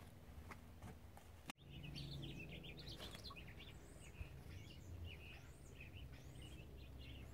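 Faint birdsong: many short chirps and quick twittering calls, starting after a brief dropout in the sound about a second and a half in, over a low outdoor rumble.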